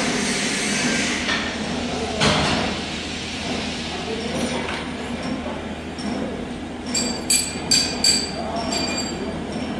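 Hammer-mill pulverizer's electric motor running with a steady hum and rumble. There is a thump about two seconds in, and several sharp metallic clinks about seven to eight seconds in.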